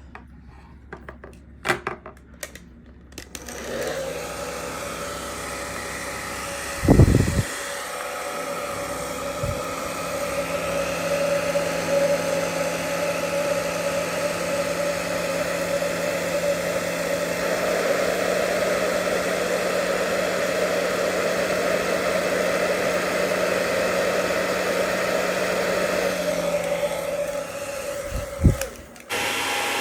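Hair dryer running steadily, blowing heat to soften the glue under a GoPro's screen. It starts about four seconds in after a few small clicks, with a loud low thump about seven seconds in and another just before it cuts off near the end.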